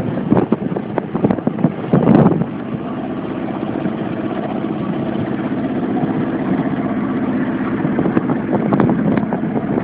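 The small engine of an 8 ft mini speed boat runs steadily, with a few sharp knocks in the first couple of seconds.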